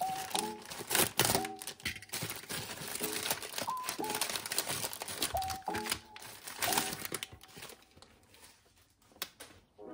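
Plastic and paper packaging crinkling and rustling as it is handled and unwrapped, over soft background music. The crinkling thins out and quiets near the end.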